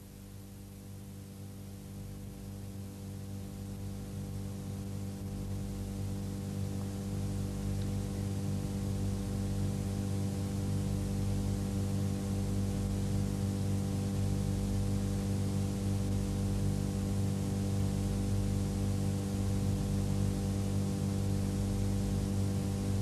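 Steady electrical mains hum with a background hiss, slowly growing louder over the first several seconds and then holding level.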